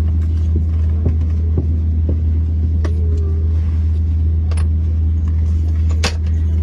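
Steady low cabin drone inside an Airbus A321neo airliner, with a few sharp clicks and knocks scattered through it, the loudest about six seconds in.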